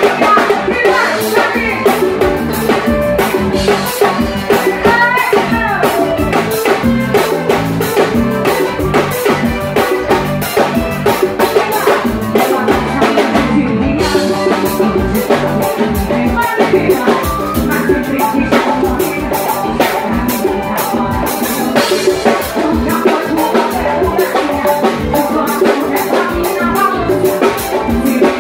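Live band playing a song with drum kit and accordion, with a woman singing into a microphone over it.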